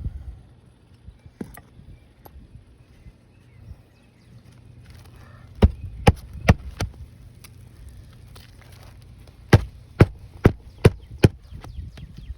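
Hammer driving roofing nails into a replacement asphalt shingle: two runs of sharp blows, four and then five, a couple of strikes a second.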